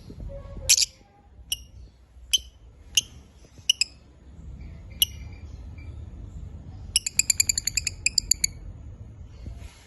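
Lovebirds chirping: single sharp, high chirps about a second apart, then a fast run of chirps a little past two-thirds of the way through.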